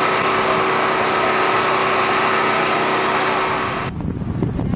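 A car engine running steadily with an even, unchanging drone. About four seconds in it cuts off abruptly, and gusts of wind buffet the microphone.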